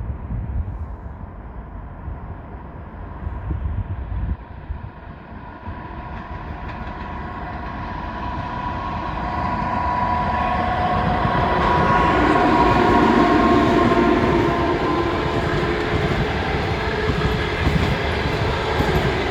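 EP2K electric locomotive humming under traction power: several steady tones that grow louder as it approaches and are loudest about two-thirds of the way in. The rumble of the train running on the rails follows.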